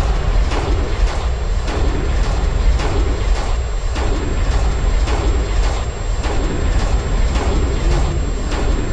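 Film soundtrack: a deep, steady rumble with sharp strokes at an even pulse, a little over two a second.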